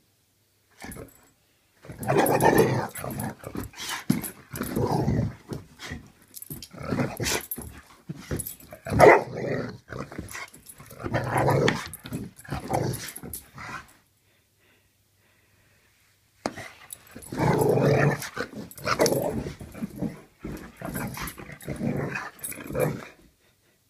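Pit bull growling in play, with a few barks, in two long bouts separated by a pause of a couple of seconds.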